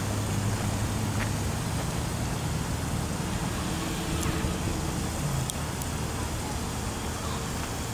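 Street traffic noise: a steady low hum of vehicle engines with the hiss of road noise.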